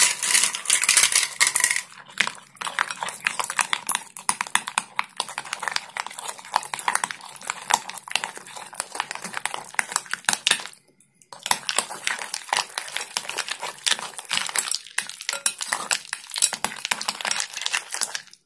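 Small metal wire whisk beating ghee and ice cubes in a glass bowl: rapid, continuous clicking and scraping of metal against glass and ice, with a brief pause a little after halfway.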